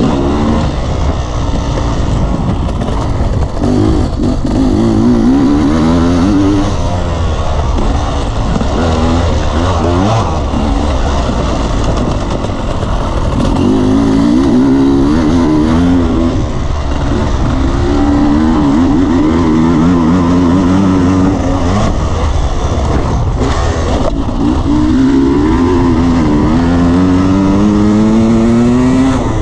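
Dirt bike engine revving up and easing off again and again as it accelerates through the gears, with rising pitch sweeps, the longest building toward the end. Heavy low rumble of wind and ground noise on the helmet-mounted microphone.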